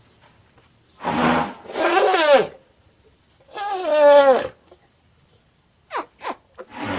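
Elephant trumpeting: three separate calls, each a brassy pitched blare that falls in pitch as it ends. Two very short, sharp squeaks come near the end, and another call begins just before it stops.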